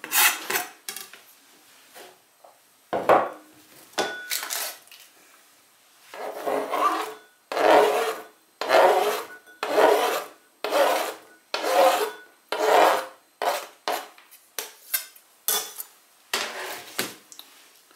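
A kitchen knife scraping diced onion across a plastic cutting board in repeated rasping strokes. There are a few scattered scrapes at first, then from about six seconds in a regular run of about a dozen strokes, roughly one every second.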